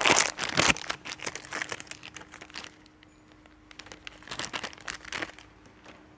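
Crinkling, rustling handling sounds, loudest in the first second and again about four and a half seconds in, over a faint steady hum.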